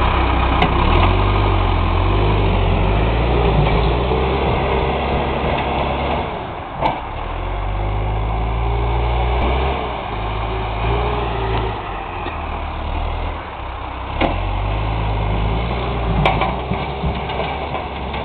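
Vehicle engine running, its speed rising and falling every second or two, with a few short sharp knocks.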